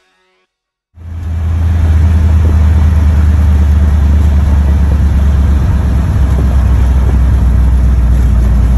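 Engine and exhaust of a hot-rodded 1937 Plymouth pickup truck heard from inside the cab while driving: a loud, steady low drone that starts about a second in.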